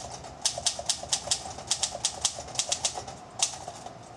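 Keystrokes on a 1959 Olympia SM-3 manual typewriter: the typebars strike the platen about four to five times a second in short runs with brief pauses.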